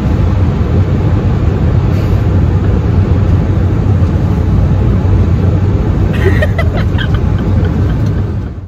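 Loud, steady rumble of a jet airliner's engines and rushing air, heard inside the passenger cabin. It cuts off suddenly at the very end.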